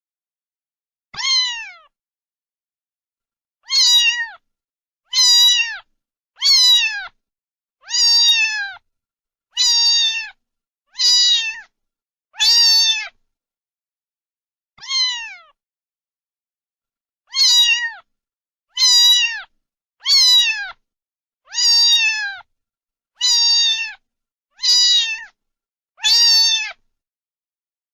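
Domestic cat meowing over and over, about sixteen short meows, each falling in pitch. The meows are near-identical and separated by dead silence.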